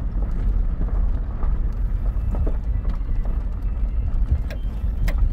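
Inside the cab of a pickup truck rolling slowly over a gravel and dirt road: a steady low rumble of engine and tyres, with scattered clicks of gravel under the tyres and one sharper click about five seconds in.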